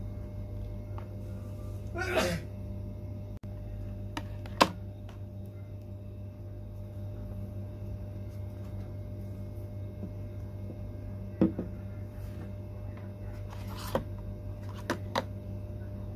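Cosmetic containers being handled: a few light clicks and taps as a plastic tube and a pump bottle are picked up and set down on a table, over a steady low hum.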